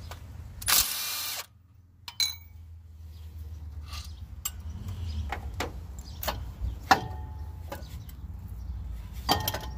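A cordless power tool with a socket on a long extension runs in one short burst about a second in, on a bolt beside the water pump pulley, and cuts off sharply. Then come scattered clicks and knocks of hands working parts loose among the pulleys, over a low steady hum.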